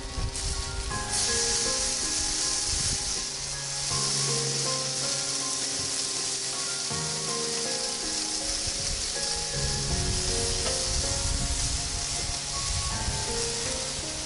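Marinated mushrooms sizzling on a hot grill grate as they are turned, a steady sizzle that grows stronger about a second in. Background music with held notes plays alongside.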